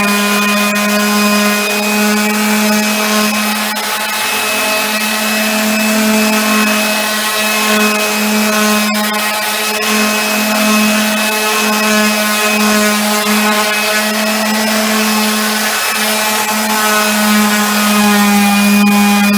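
Electric sander running steadily on a solid oak worktop, a steady motor hum over the hiss of abrasive on wood as a patched-in section is sanded flush.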